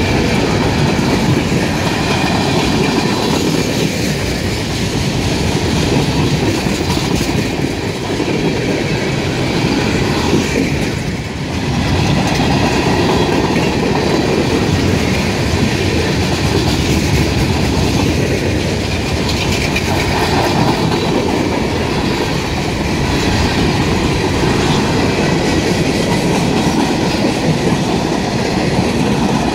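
Freight train cars rolling past steadily, their wheels rattling over the rails.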